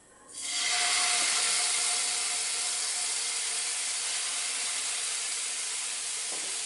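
Skewered chicken pieces in a wet green marinade sizzling in hot oil as they are laid into a non-stick frying pan. The sizzle starts sharply a fraction of a second in and goes on steadily, easing slightly.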